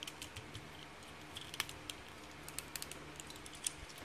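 Plastic joints and panels of a small transforming robot figure clicking and tapping as it is handled and transformed: a scatter of light clicks, one sharper than the rest about a second and a half in.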